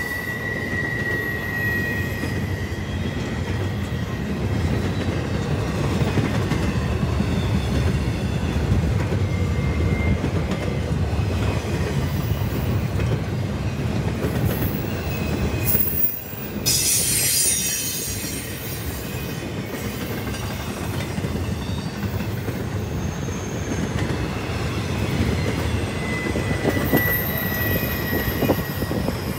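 Norfolk Southern double-stack intermodal freight train rolling past: a steady rumble of wheels on rail, with high-pitched wheel squeal at the start, again about halfway through, and near the end.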